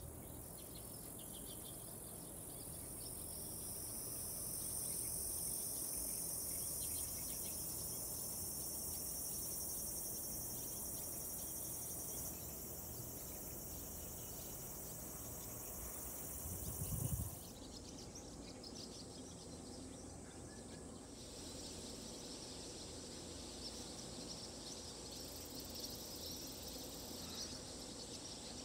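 Steady high-pitched evening insect chorus, with a brief low thump a little past halfway, after which the chorus carries on in a somewhat lower band.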